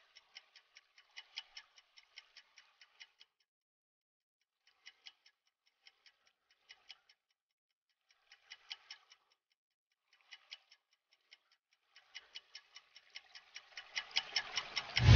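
Clock-ticking sound effect: quick, evenly spaced ticks, several a second, coming in bursts with short gaps. Near the end the ticks grow louder and swell into a loud, deep whoosh.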